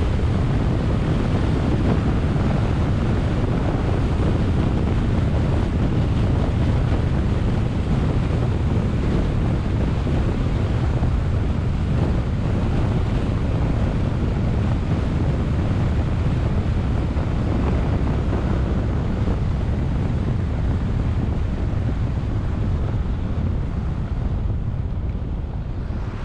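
Steady rushing wind on the microphone of a camera mounted on a moving car, mixed with road noise. It eases off near the end as the car slows.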